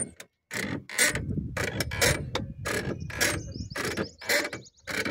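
Rear suspension of an Ola electric scooter creaking as it works, in short strokes about twice a second, some with a thin high squeak. The speaker treats this as a lubrication noise from the rear suspension that lubricant spray will reduce.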